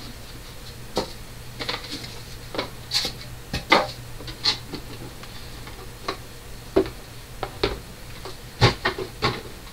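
Irregular clicks and knocks of hard plastic being handled: a small plastic sewing machine and its packaging being picked at and moved about, over a steady low hum.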